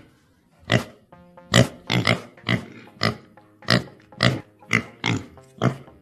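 An animal grunting in short, sharp calls, about two a second, over light background music that comes in about a second in.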